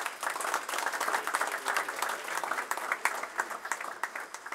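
A small group of people applauding, the clapping tailing off near the end.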